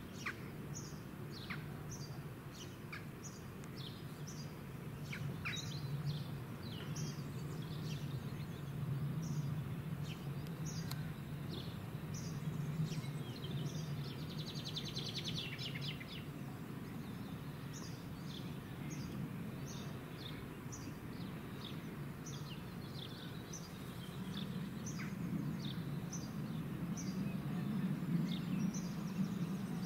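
Small birds chirping repeatedly, with a short rapid trill about halfway through, over a steady low rumble that swells slightly near the end.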